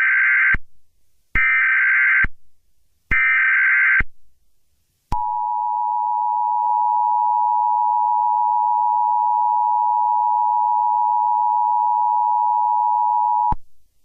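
Emergency Alert System tones: three bursts of about a second each of screechy digital SAME header data, then the two-tone EAS attention signal held steady for about eight seconds before it cuts off.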